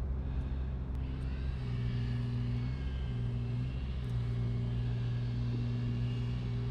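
A steady low engine hum whose pitch and strength shift a little every second or so.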